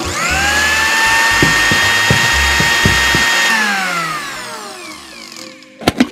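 Miniature electric blender's small motor whirring up to speed when switched on, running steadily with a high whine for about three seconds, then winding down after it is switched off. A couple of sharp plastic clicks near the end as the lid is lifted off.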